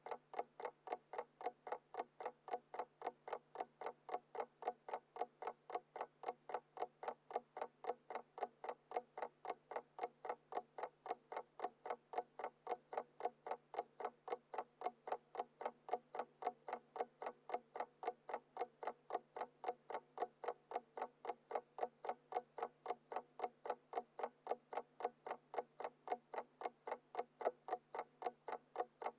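Alarm clock ticking in a rapid, even rhythm, with a faint steady hum underneath.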